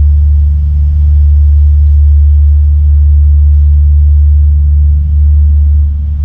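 The catamaran ferry's engines make a loud, steady low drone, heard from inside the passenger cabin.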